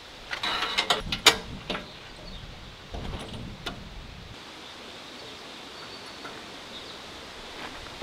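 Metal clicks, rattles and knocks from hands working on the head of a Woodland Mills HM126 bandsaw sawmill, its engine not running: a quick run of clatter in the first two seconds with one sharp clack, and a few more knocks about three seconds in.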